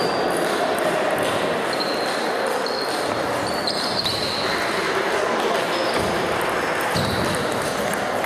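Table tennis balls clicking off bats and tables in rallies at several tables at once, echoing in a sports hall, over a steady murmur of voices.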